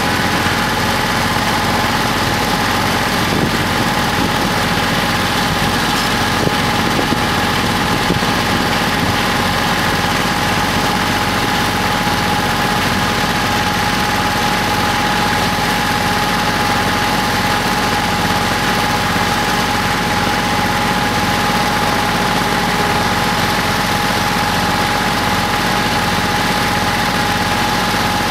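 Kubota L3400 compact tractor's diesel engine idling steadily, with a steady whine riding over the engine note.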